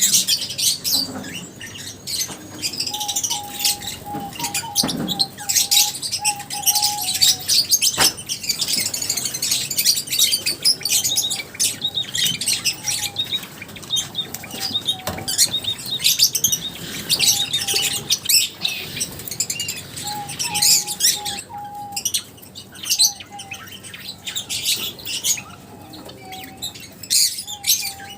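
A flock of lovebirds chirping continuously: dense, rapid, high-pitched chirps and squeaks from many birds at once. A steady lower tone comes and goes underneath several times.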